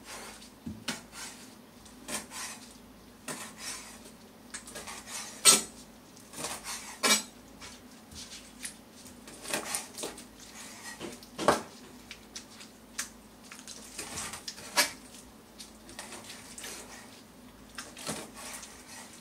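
Kitchen knife cutting octopus on a plastic cutting board: irregular taps and knocks of the blade against the board, a few much sharper than the rest, from slicing gently rather than pounding.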